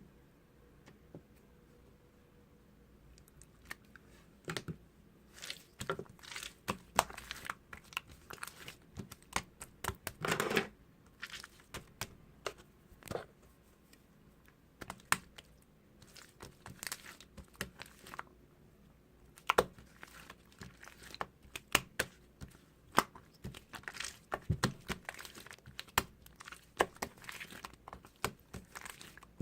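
Hands playing with slime: an irregular run of short clicks, crackles and pops, with a longer crackling burst about ten seconds in.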